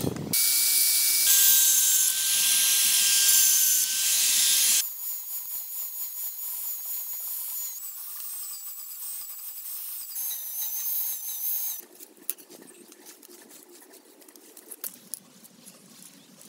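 Angle grinder cutting through the steel spokes of a rusted bicycle wheel: a loud, high hiss of the disc on metal over the motor's steady whine, in several abrupt stretches. About twelve seconds in it stops, leaving quieter handling with a few light clicks.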